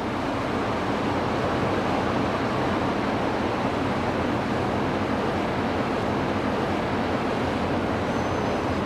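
Steady river ambience: the low engine hum of passenger boats under an even wash of water and wind noise.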